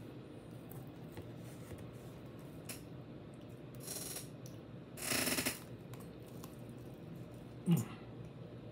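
Close-up eating sounds: crackly chewing of crispy homemade pizza crust and fries, with a few short, louder sounds, the loudest about five seconds in and another near the end.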